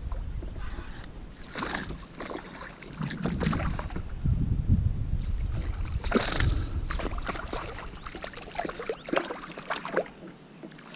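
Scattered knocks, clicks and rustles from handling a fish in a kayak while working a deep-swallowed hook out of its mouth, with the loudest bursts about two seconds in and again about six seconds in.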